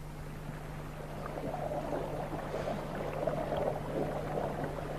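Hot spring water bubbling and gurgling at the edge of a soda lake, growing louder after a second or so, over a steady low hum.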